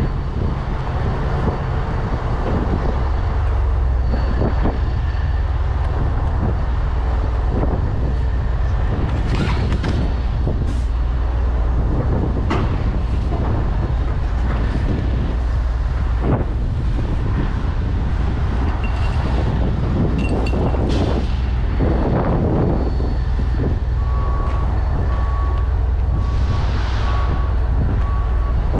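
Steady low engine rumble with scattered knocks and clanks of strap hardware as ratchet straps are thrown over the load and handled. From about 24 seconds in, a vehicle's reversing alarm beeps repeatedly.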